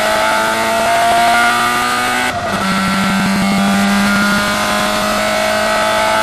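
Hill-climb race car's engine accelerating, heard from inside the cabin: the pitch climbs steadily, breaks briefly with a gear change about two and a half seconds in, then climbs again.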